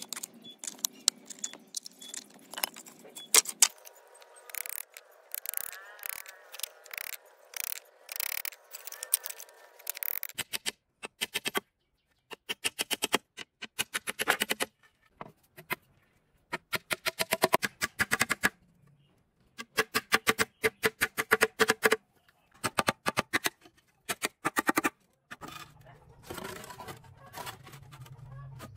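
Claw hammer driving nails into wooden boards: runs of quick, sharp taps and knocks, separated by short pauses.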